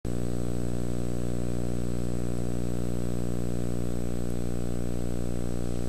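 Steady electrical hum and buzz with many overtones from a VHS tape playback, starting abruptly at the first instant and holding an even level throughout, with a faint thin high whine above it.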